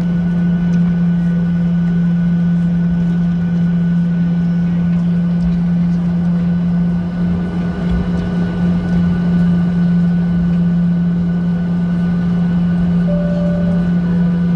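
Boeing 737 jet engines at taxi power, heard from inside the cabin: a steady drone with a strong low hum and fainter higher tones over a rumble.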